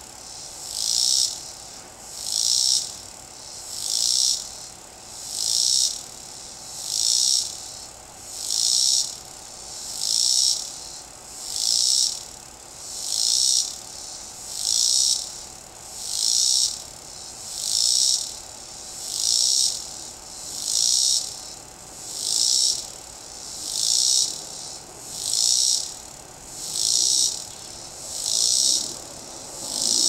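Male cicada singing: a high-pitched song that swells and fades in regular pulses, about one every second and a half.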